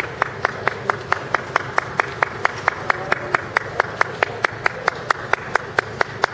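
Steady rhythmic hand-clapping, about four claps a second, in even time over a background murmur of crowd noise.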